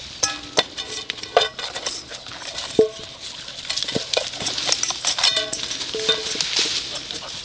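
Stainless steel dog bowl clanking and scraping again and again as a Gordon Setter puppy picks it up in its mouth and carries it, some knocks leaving a short metallic ring.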